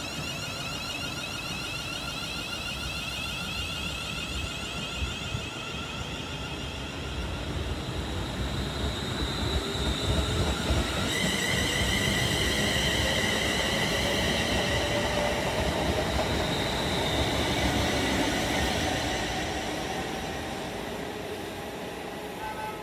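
Siemens Desiro Class 350 electric multiple unit pulling away from the platform, its traction motors whining and rising in pitch as it gathers speed over the rumble of wheels on rail. The sound swells about halfway through, then fades as the train draws off.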